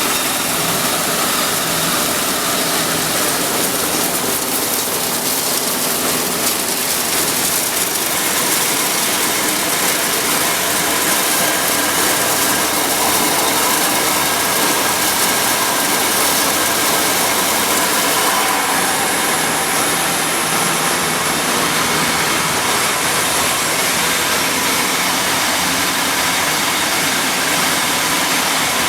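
Corn milling plant machinery running: a loud, steady mechanical noise with faint, even whining tones in it.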